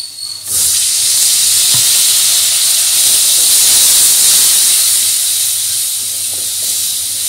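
Onion and spice masala sizzling loudly in hot mustard oil in a kadhai as it is stirred and fried, the hiss starting suddenly about half a second in and holding steady.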